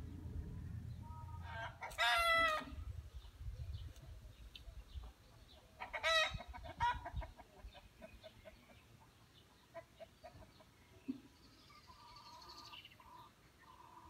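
Chickens calling: a loud, short wavering call about two seconds in and another about six seconds in, followed by a fainter cluck. Small birds chirp faintly near the end.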